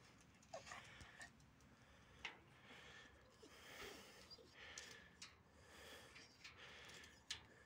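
Near silence: faint background hiss with a few soft clicks and taps.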